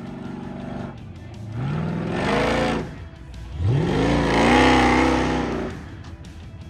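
Off-road race pickup's engine revving hard twice as it climbs a steep dirt hill under load, the pitch rising steeply each time, the second rev longer and louder.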